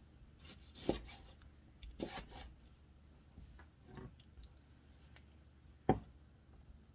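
Chef's knife slicing a tomato on a wooden cutting board: a few scattered soft knocks and scrapes of the blade against the board, the sharpest one about six seconds in.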